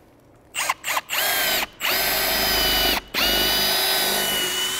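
Cordless drill with a quarter-inch bit boring a hole through asphalt roof shingles into a truss. It gives a few short trigger blips about half a second in, then runs in three stretches of steady whine, each starting with a quick rise in pitch, with brief stops between them.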